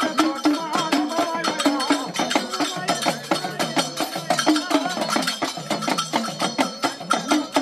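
Devotional folk singing accompanied by metal plates beaten with sticks in a fast, steady rhythm of about four or five strikes a second.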